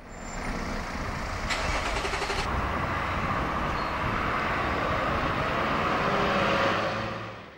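Road traffic: a bus and a lorry running along a street, with a brief hiss about a second and a half in. The sound fades in at the start and fades out near the end.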